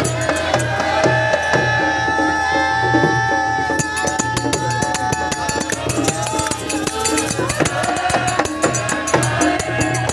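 Sikh devotional hymn sung by a group, with a hand drum and jingling percussion keeping a steady beat; a long held note in the first half.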